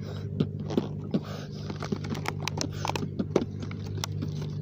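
Scattered light clicks and taps at an irregular pace over a steady low hum.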